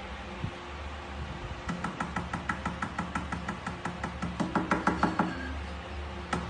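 Fingers knocking on a glass tabletop in a quick run of sharp, ringing taps, about four or five a second, loudest about five seconds in, over a low steady hum.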